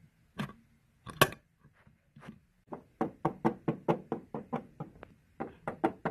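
A few sharp clicks and knocks, one louder than the rest, as a small toy tack box is handled and opened. Then a plastic Schleich rider figure is tapped along a cobblestone-patterned play mat as footsteps, a quick even run of about four taps a second.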